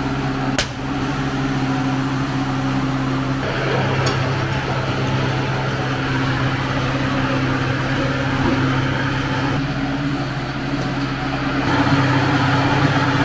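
Steady mechanical hum of a tyre-changing machine at work as a tyre is mounted on an alloy wheel, with one sharp click about half a second in.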